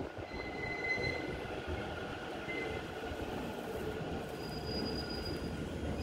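JR East E231 series commuter train running into the platform and past at close range: a steady rumble of wheels on rail with faint high-pitched squealing tones over it.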